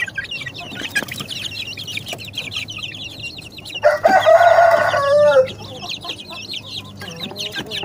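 A flock of young ayam kampung (Indonesian village chickens) peeping rapidly and continuously in high chirps. About four seconds in, a cockerel crows once for about a second, ending on a falling pitch, loudest of all.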